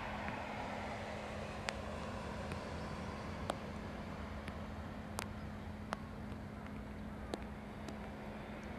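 Distant jet noise of a Boeing 777-200ER with Rolls-Royce Trent engines on final approach: a steady rushing rumble over a low hum. A few sharp ticks cut through it.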